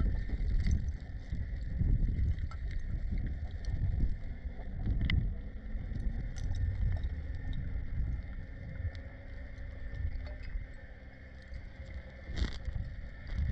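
Underwater ambience picked up by a camera in its waterproof housing: an uneven low rumble of water moving against the housing, with scattered faint clicks and a louder crackle near the end.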